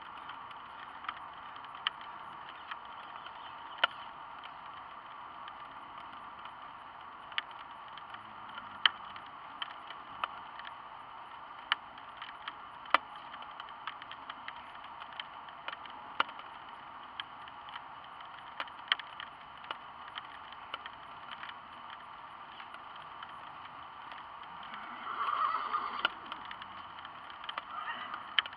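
Steady rain hiss with irregular sharp drop ticks close by, a few every second or so. About 25 seconds in, a louder rushing swell lasts about a second.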